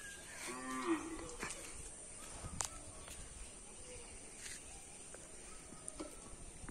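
One short, low animal call with a rising end, about half a second in, then a few faint scattered clicks over low steady outdoor background noise.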